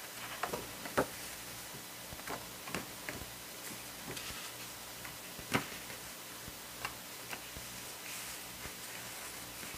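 Irregular light clicks and taps of stiff card and paper as hands lift inserts out of a cardboard album box and press them flat, the loudest about a second in and again about five and a half seconds in.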